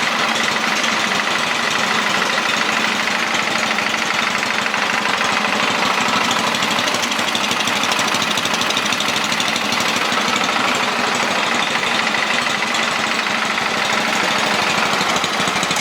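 Ariens snowblower's LCT single-cylinder four-stroke engine idling steadily and smoothly on fresh gas.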